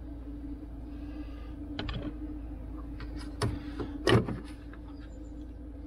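A Bosch cordless screwdriver whirs briefly about a second in, followed by a series of sharp plastic clicks and knocks as van trim and fittings are handled, the loudest knock about four seconds in. A steady low hum runs underneath.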